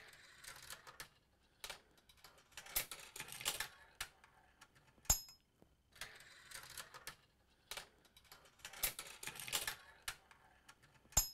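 Steel marbles rolling and clattering through a Gravitrax plastic marble run: rattling runs and clicks on the plastic track pieces, each run ending in a single sharp click that rings briefly. The same sequence of rattles and clicks is heard twice.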